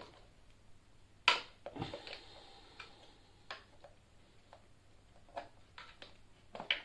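Tyre levers clicking and knocking against the rim of an e-scooter's rear wheel while the tyre bead is levered off: scattered irregular clicks, the loudest about a second in.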